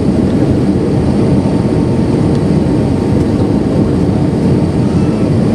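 Airbus A319 cabin noise on final approach: a steady low rumble of the jet engines and air rushing past the fuselage, heard from a seat over the wing.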